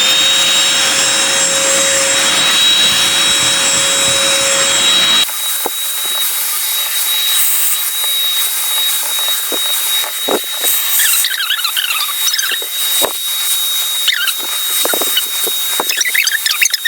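Oraimo cordless handheld vacuum running after spinning up, a steady high whine over a rushing airflow. About five seconds in, the low rushing drops away abruptly while the whine continues, and in the second half scratchy squeaks come and go over it.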